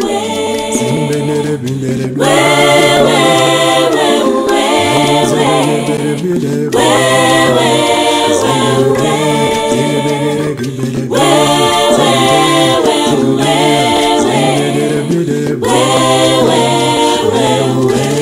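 Several voices singing in harmony without instruments, a cappella, over a low held bass part. The song moves in repeating phrases about four and a half seconds apart.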